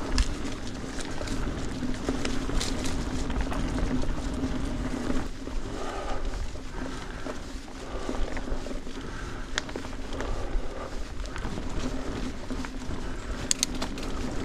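Canyon Neuron full-suspension mountain bike being ridden over a rocky trail on Maxxis Forekaster 29x2.20 tyres: continuous tyre and trail noise with a steady low hum, deep rumble, and scattered sharp clicks and rattles from stones and the bike.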